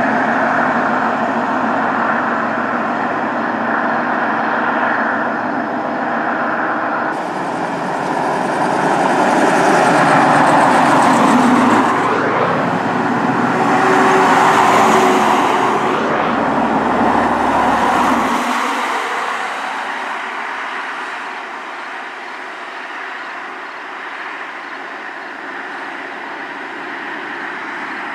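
Forest fire brush trucks driving past in a convoy, engine and tyre noise swelling loudest about halfway through as one passes close, then settling to a quieter, steadier road sound.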